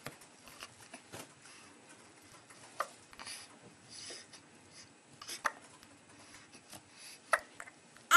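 A newborn baby hiccuping: a run of short, sharp hiccups, the louder ones coming every two to three seconds, with soft breathing sounds between them.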